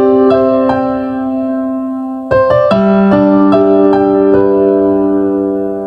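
Intro music on electric piano: slow, held chords with single notes struck over them. A new, louder chord comes in a little over two seconds in.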